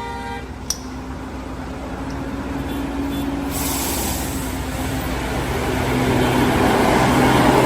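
A heavy truck engine labouring up a steep grade, its sound growing steadily louder as it comes closer. A short horn toot sounds right at the start.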